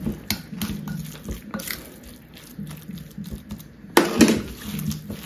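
Gloved hands mixing seasoned ground pork in a glass bowl: a run of wet squelches and soft clicks, with a louder hit about four seconds in.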